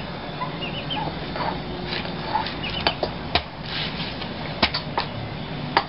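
Large kitchen knife cutting young jackfruit on a banana leaf laid on concrete: about five sharp knocks of the blade in the second half. A chicken clucks faintly in short chirps.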